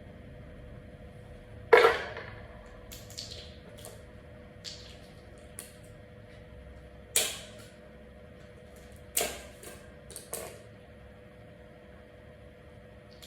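Metal shelving poles and trays knocking and clanking as they are handled and set down: one loud clank about two seconds in, a few lighter taps, then two more sharp knocks and a small cluster of knocks near the end.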